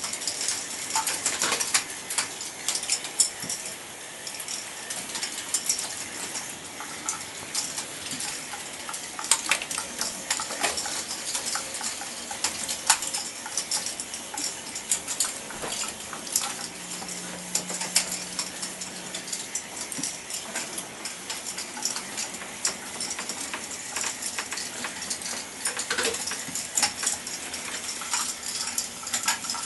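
A K'nex ball machine running: plastic balls clicking, clacking and rattling along plastic tracks and through lifts in many irregular clicks. A faint low hum comes in for a couple of seconds near the middle.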